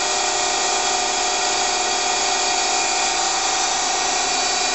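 Daewoo Puma 6G CNC lathe running with a steady high whine over a hiss.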